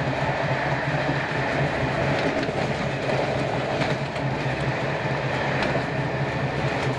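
Class 302 slam-door electric multiple unit running at speed, heard from inside the carriage: a steady rumble of wheels on rail under a low hum, with a few faint clicks from the track.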